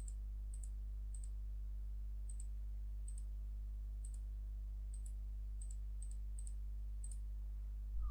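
Low, steady electrical hum with faint, light clicks about once or twice a second.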